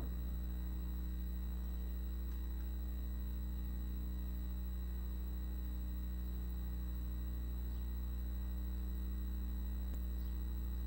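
Steady low electrical hum with a thin, constant high-pitched whine above it. A few very faint ticks come through it.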